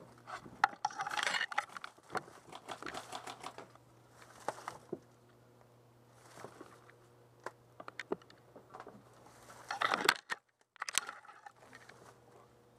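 Footsteps and rustling through dry grass and brush: irregular crunching and swishing of dry stalks as someone pushes through the undergrowth, loudest about a second in and again about ten seconds in.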